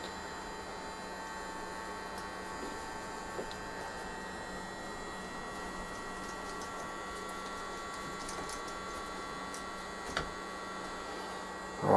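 Steady electrical hum, with a few faint small clicks from a hand driver working on screws.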